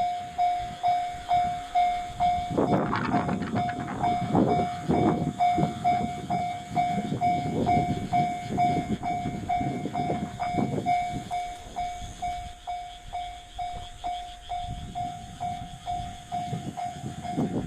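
Japanese railway level-crossing warning bell ringing steadily, one ringing tone about twice a second. A low rumble of railway or vehicle noise rises under it about three seconds in, dies away after about eleven seconds, and builds again near the end.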